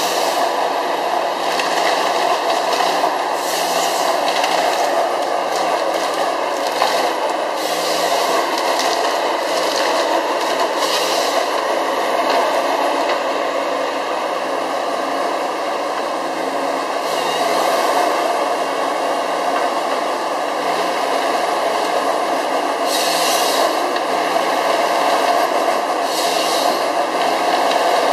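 Gremo 1050H harvester working hard: its engine and hydraulics run steadily under load while the harvester head feeds and delimbs a conifer stem. Repeated short bursts of crackling and rasping cut through the steady noise as branches are stripped and the stem is worked.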